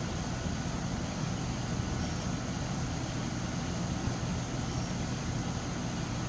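Steady low hum of running machinery, with a faint thin high tone above it.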